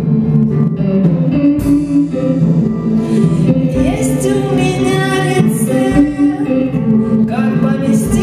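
Live band music with a singing voice; the sung line comes in about four seconds in, sliding up to held notes over steady low chords.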